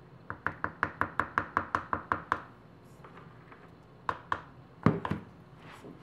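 An orange plastic bucket of soap batter being knocked to empty it over the mould: a quick even run of about a dozen light knocks, about five a second. Then two more knocks and a heavier thump with a couple of smaller knocks as the bucket is set down on the counter.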